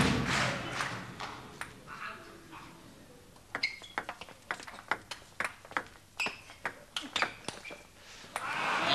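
Table tennis rally: the ball clicking sharply back and forth off bats and table in a quick run of about fifteen ticks, starting about three and a half seconds in. Crowd cheering dies away in the first second or two.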